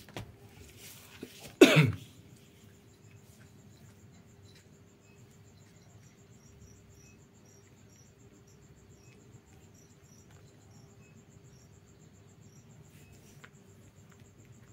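Crickets chirping in a steady, fast-pulsing trill, with a single loud cough close to the microphone about two seconds in.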